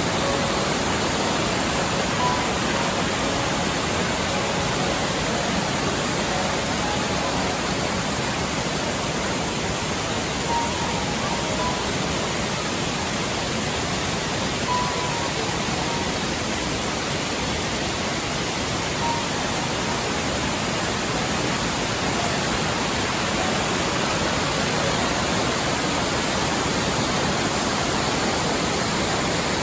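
Waterfall running as a steady, even rush of water, with a few faint short notes sounding now and then over it.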